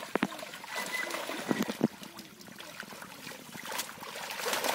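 Water trickling and splashing as a fine-mesh fishing net is gathered and hauled through shallow muddy pond water, with a few sharp splashes, one near the start and one just before the two-second mark.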